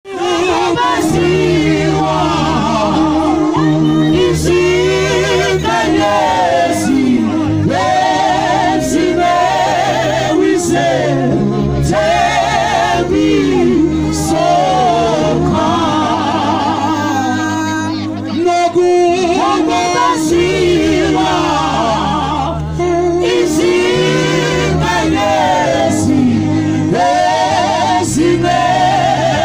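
A small group of singers, two women and a man, singing together into microphones through a PA. Their voices waver on held notes over a steady low accompaniment whose notes change every few seconds.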